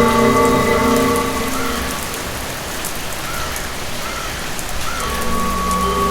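Steady rain falling, with a fine patter of scattered drops. A drone of several held tones over a low rumble fades out about two seconds in and comes back near the end.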